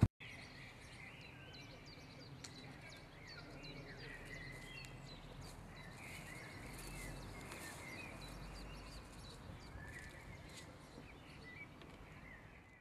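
Faint outdoor ambience of small birds chirping and twittering, many short quick calls over a low, steady background rumble. The sound cuts out to silence just before the end.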